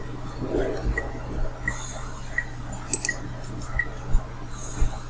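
Quiet room tone with a steady low hum and faint, evenly spaced ticks about every 0.7 s. A few sharp computer-mouse clicks come about three seconds in, as the on-screen pen menu is opened.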